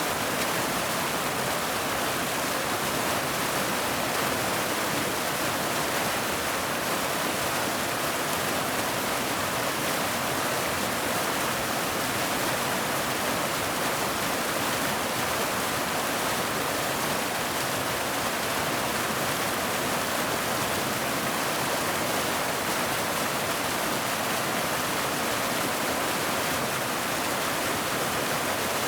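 Waterfall: water falling and rushing in a steady, unbroken hiss.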